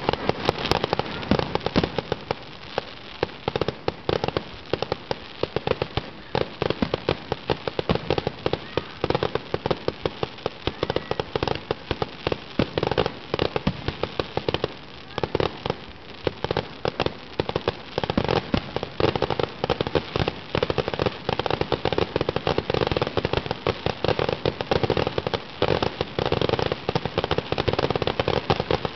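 Fireworks display: a continuous barrage of bangs and crackling, several reports a second with no break.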